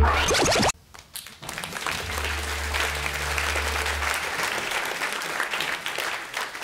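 Music cuts off abruptly under a second in. After a brief gap, an audience claps steadily for about five seconds.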